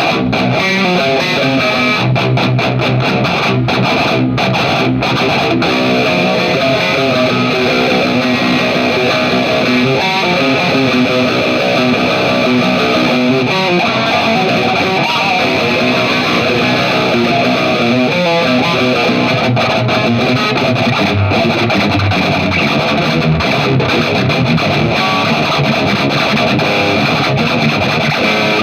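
Distorted electric guitar playing riffs without a break.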